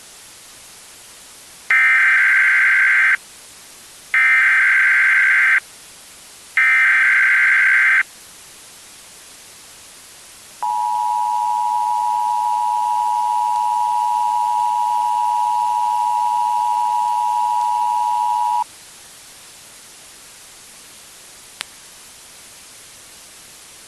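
Emergency Alert System attention sequence over a steady hiss: three short, identical bursts of SAME header data, a harsh digital screech, followed by the EAS two-tone attention signal, two steady pitches sounded together for about eight seconds. These tones mark the start of an emergency alert broadcast. A single brief click comes a few seconds after the tones stop.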